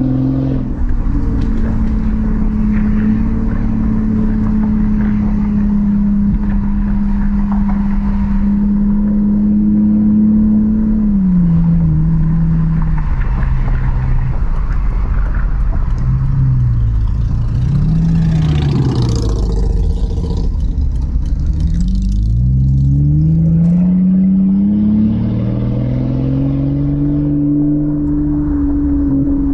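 Straight-piped 5.8-litre V12 of a 2002 Mercedes S600 driving: it holds a steady cruise, drops in pitch as it slows about a third of the way in, dips and rises again, then climbs as it accelerates and holds a higher steady note near the end. Tyre and road noise run underneath.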